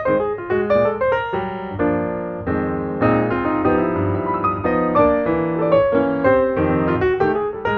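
Background piano music, quick runs of notes over chords.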